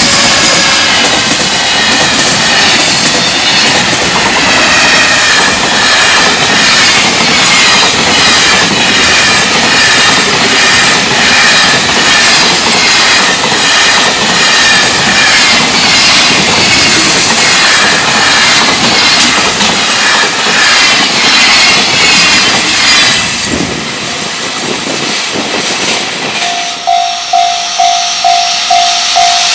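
Long container freight train behind an electric locomotive passing at speed close by, a loud steady rumble with the wheels clacking over rail joints and a high ringing from the wheels on the rails. The sound cuts off about 24 seconds in. From about 27 seconds a level-crossing warning bell dings about twice a second.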